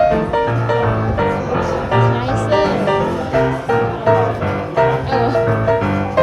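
Background music: an upbeat instrumental tune with piano and a bass line over a steady beat.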